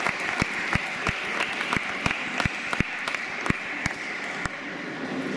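Audience applauding, with one close clapper's sharp claps at about three a second standing out; these stop near the end as the applause thins.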